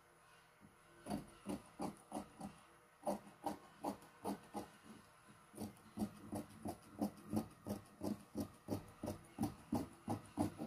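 Large fabric shears cutting through crepe fabric, a steady run of snips about three a second, starting about a second in.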